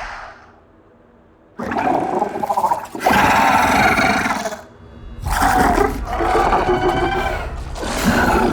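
Designed monster roars and growls from a creature sound-effects library: a sudden loud roar about a second and a half in, and another after a short drop near the middle.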